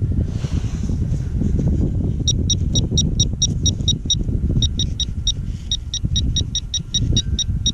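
A handheld metal-detecting pinpointer beeping rapidly, about five short high beeps a second, starting about two seconds in with a brief break midway. The fast beeping means it is right over the target in the dug hole. Under it runs a steady low rumble.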